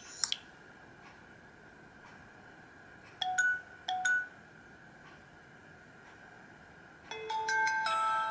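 Nokia C3-01 mobile phone playing its built-in alert tones: short electronic chime notes over a faint hiss. There is a brief high chime at the start, then two short two-note dings less than a second apart, and about seven seconds in a new tone begins with a quick run of overlapping chime notes that keep ringing.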